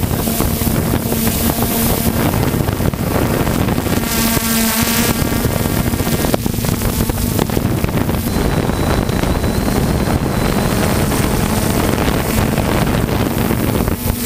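Quadcopter drone's electric motors and propellers buzzing steadily, heard from the camera mounted on the drone itself, with wind rushing over the microphone.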